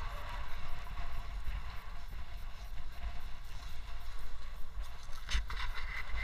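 Wind rumbling and buffeting on an action camera's microphone, with a short run of sharp clicks a little after five seconds in from a snowboard binding strap being ratcheted tight.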